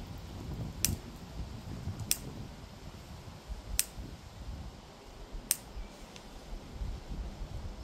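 A hand lighter clicked four times, about a second or a second and a half apart, failing to catch, with wind rumbling on the microphone.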